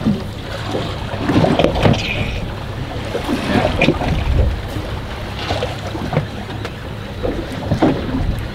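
Water slapping and sloshing against the hull of a drifting fishing boat, in uneven splashes over a steady low rumble.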